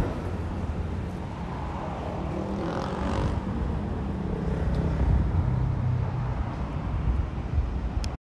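Street ambience dominated by a motor vehicle's engine running: a steady low hum that swells about three seconds in.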